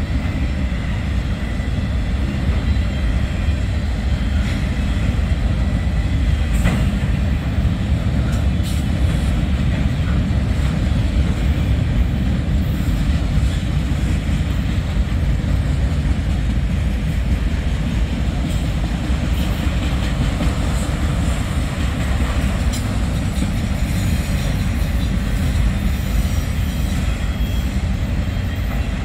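Freight train cars rolling past on the rails: a steady low rumble with a few faint wheel clicks scattered through it.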